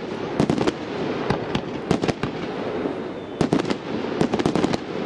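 Aerial fireworks display: many sharp bangs at irregular intervals over a continuous background noise, crowding into a quick run of bangs from about three and a half seconds in.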